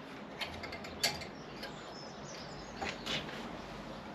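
Nylon cable ties being pulled tight around plastic bird spikes on a TV aerial: several short ratcheting zips and clicks.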